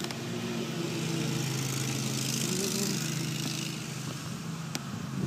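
A steady low mechanical hum, like a motor or engine running, with a swell of hiss about two to three seconds in.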